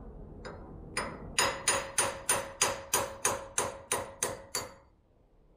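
Hammer blows knocking a wheel stud out of a 1985 Chevy Monte Carlo's wheel hub: one light tap, then about a dozen ringing metal-on-metal strikes, about three a second, that stop shortly before the end.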